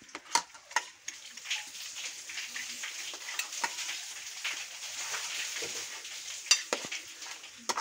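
Forks and spoons clinking and scraping on plates and an enamel pan as people eat, with a continuous soft, wet stirring and scraping sound of food being mixed and picked up. A few sharp clinks come near the start and near the end.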